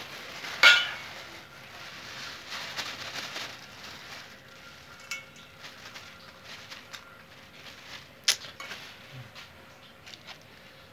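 A steel ladle clinking in a steel bowl of crushed puris while hot masala filling is tipped in from a plastic bag, with the bag rustling. There is a sharp ringing clink about a second in and another near the end.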